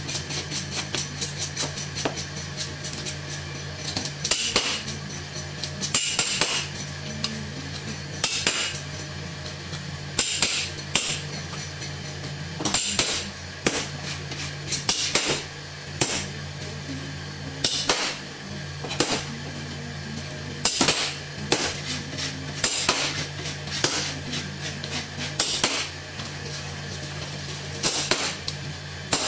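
A large kitchen knife chopping a sheri fish into steaks on a plastic cutting board: sharp chops through flesh and bone about every two seconds, with lighter knocks and taps of the blade on the board between them.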